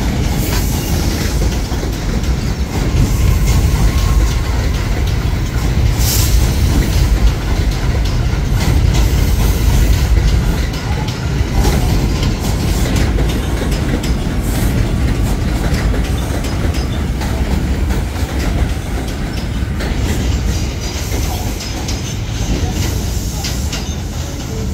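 New York City Subway R211A train running on the rails: a steady low rumble with irregular clicks as the wheels pass over rail joints.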